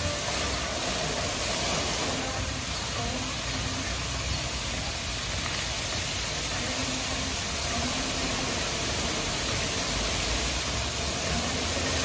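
Fountain jets spraying and water falling back into the pool: a steady rushing hiss of splashing water.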